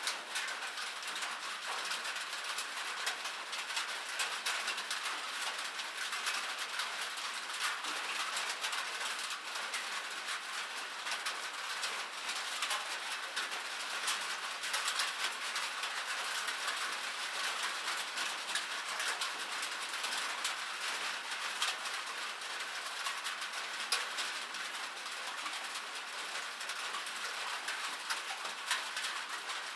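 Light rain falling: a steady hiss of many small drops pattering, with no low rumble.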